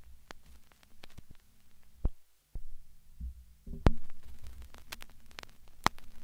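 Eerie sound-design track: crackling static clicks over a steady low hum, broken by several deep thuds. It cuts out briefly a little after two seconds.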